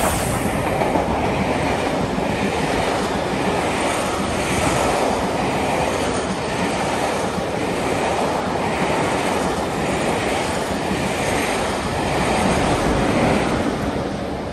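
Steam-hauled passenger train passing at speed. The LMS Black Five 4-6-0 locomotive rushes by at the start, then the coaches run past with a steady rumble and a regular clatter of wheels over the rail joints. The sound swells again near the end as the diesel locomotive on the rear goes by.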